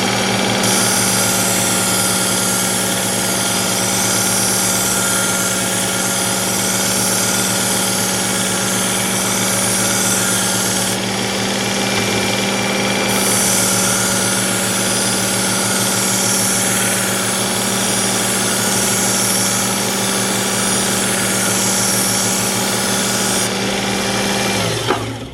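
Electric belt knife sharpener running steadily with a fine X4 abrasive belt, the blade held against the belt in two long grinding passes with a short break about 11 seconds in. The motor winds down with a falling pitch near the end.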